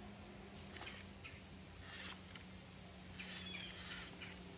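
Small electric RC rock crawler climbing over rock: a faint steady low hum with about four short scuffs from the tyres, and a few faint squeaks.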